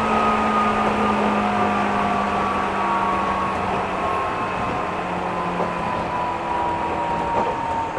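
JR 205 series electric commuter train running, heard from inside the passenger car: steady rumble of wheels on track with a whine that falls slowly in pitch as the train loses speed.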